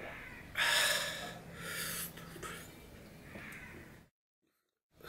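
A man's heavy breaths through mouth and nose: a loud, airy huff about half a second in, then two shorter ones, before the sound cuts off to silence.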